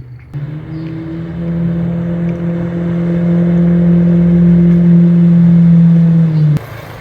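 An engine running at a steady speed, growing louder as it comes closer, then cut off abruptly near the end.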